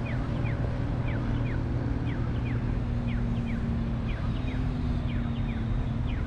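City street traffic rumbling, with a steady engine hum underneath. Birds chirp over it in short, falling calls, a couple of times a second.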